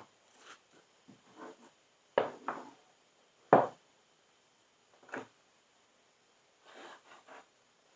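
Scattered knocks, clacks and rustles of small parts and tools being moved about while rummaging for a bolt, with one sharp clack about three and a half seconds in.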